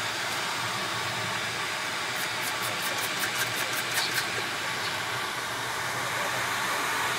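Jet engines and air rushing, heard inside the cockpit of a twin-engine business jet during its takeoff roll. A run of quick, regular high ticks, about five a second, comes in the middle for about two seconds.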